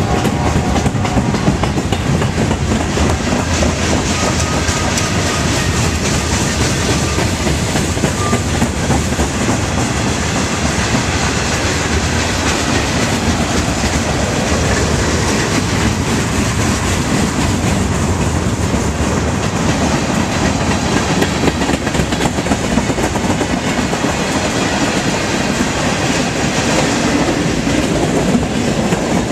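Freight train's covered hoppers and tank cars rolling past close by: a steady, loud rumble and clatter of steel wheels on the rails.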